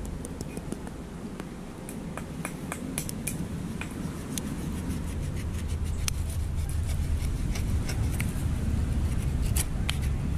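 Knife cutting and prying coconut meat away from the shell: a scatter of sharp little clicks and snaps. Under it runs a steady low rumble that grows louder in the second half.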